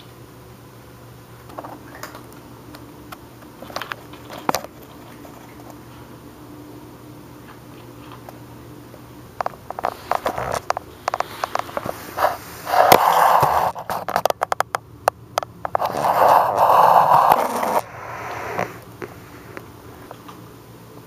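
A cat crunching dry kibble off a wooden floor, a few small crunches at a time. About halfway through come a run of sharp clicks and two loud scraping, rustling bursts a few seconds apart.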